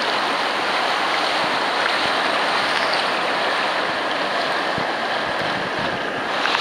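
River rapids: fast water rushing steadily over boulders, with no breaks.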